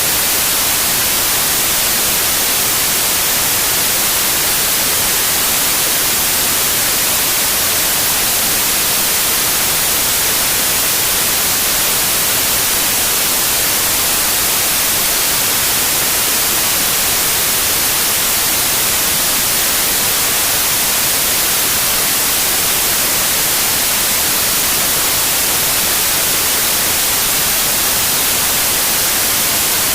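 Steady white noise: an even, unchanging hiss, strongest in the high frequencies, with no gusts or breaks.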